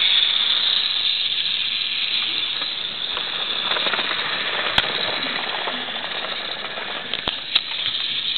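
Battery-powered Geotrax toy locomotive running on plastic track: a steady whirring hiss. Sharp clicks come once about halfway through and twice near the end.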